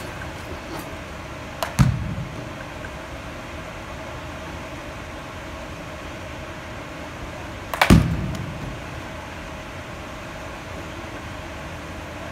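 Two hits of a short training bat on a baseball off a batting tee, about six seconds apart, each a sharp crack followed by a heavier thud. A steady hum runs underneath.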